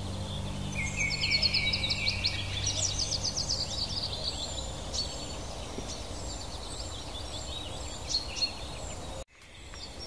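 Several songbirds singing over a steady faint hiss: rapid high trills and a lower buzzy phrase in the first few seconds, then scattered single chirps. A low sustained music tone fades out early, and the sound cuts out abruptly near the end.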